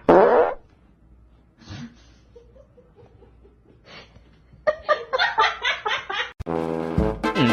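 A sudden loud cry at the start, then a person laughing in a quick run of about four bursts a second. Comic brass music comes in near the end.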